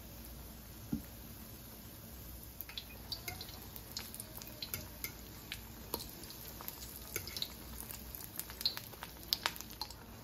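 Oil frying apple fritter batter in a wok: a quiet sizzle with scattered sharp crackles and pops that grow more frequent after the first couple of seconds. A single soft knock about a second in.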